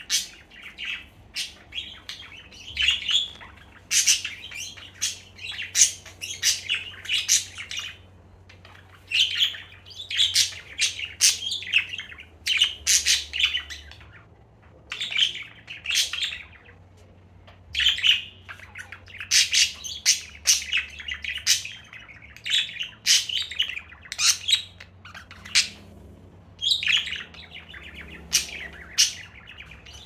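Budgerigar chirping: runs of short, sharp chirps in quick succession, broken by brief pauses.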